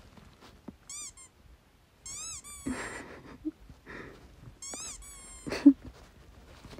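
Rubber squeaky dog toy being squeezed: a single squeak about a second in, then two quick runs of several high, pitch-bending squeaks. Short breathy vocal sounds come between the squeezes, the loudest a little before the end.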